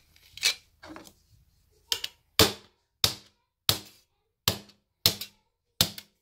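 Knife blade scraped again and again across a curved tempered-glass screen protector for a Samsung Galaxy S8: about eight short, sharp strokes, roughly three every two seconds.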